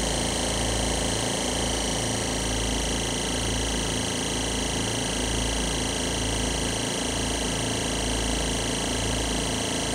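Oil-less dental air compressor running steadily, its piston and reed-valve pumps open to the air without their intake filter boxes. The low hum swells and dips in a slow, regular throb about every three seconds.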